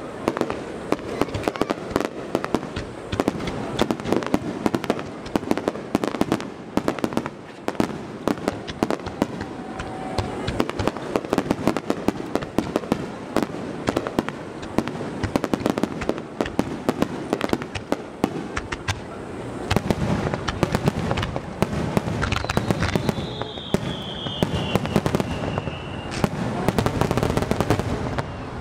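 Rapid-fire aerial fireworks barrage: a dense, continuous run of shell bursts and crackling bangs, many a second. A short falling whistle comes about three-quarters of the way through.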